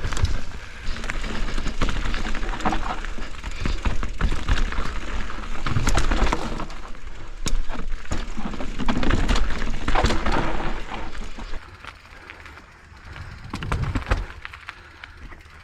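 Mountain bike riding a rough trail: tyres rolling over dirt and roots with frequent rattles, clicks and knocks from the bike, over a steady low rumble. The sound eases off and gets quieter for the last few seconds.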